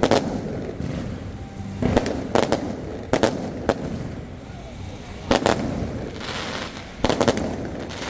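Aerial fireworks shells bursting overhead: a string of sharp bangs, often in twos and threes, every second or two.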